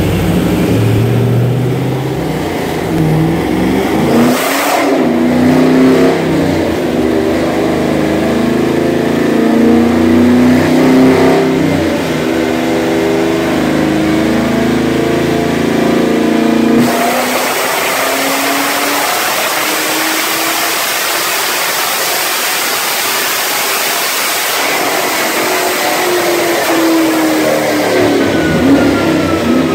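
Cammed LS3 6.2-litre V8 of a 2014 Camaro SS 1LE with headers and no catalytic converters, run on a chassis dyno with the rear tyre spinning on the roller. The engine note climbs in pitch in steps through the first half, a loud even rush takes over a bit past halfway, and near the end the pitch falls as it winds down.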